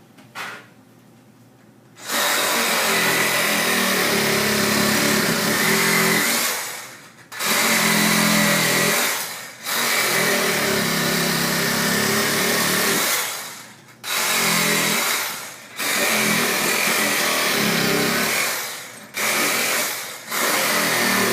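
Reciprocating saw running in repeated bursts of one to four seconds with short pauses between them, its 3-inch blade cutting rubber OPRs off a heated tire. The first two seconds are quiet before the saw starts.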